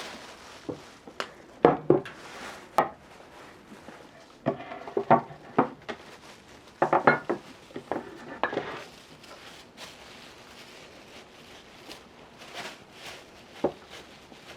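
Kitchen utensils and dishes clinking and knocking in scattered clusters, each knock with a short ring. The loudest come about two, five and seven seconds in, with one more near the end.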